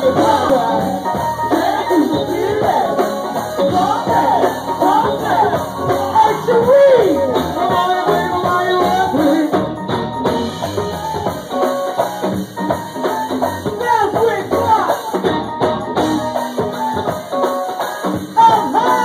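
Live band music with several women singing into microphones over the band, and a tambourine shaken along with the beat.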